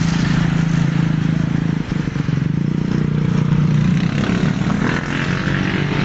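A vehicle engine running steadily close by, a low even hum.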